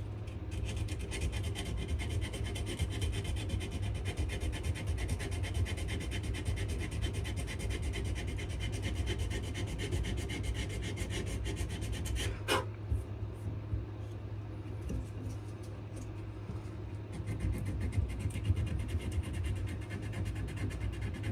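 80-grit sandpaper rubbing back and forth by hand on a wenge and maple knife handle, a steady scratchy sanding sound, with one sharp click about twelve seconds in.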